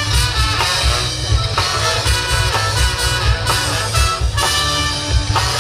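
Band music with a steady beat and held instrument notes.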